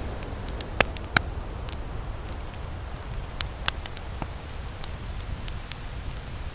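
Wood campfire crackling, with scattered sharp pops and two loud snaps about a second in, over a steady low rumble.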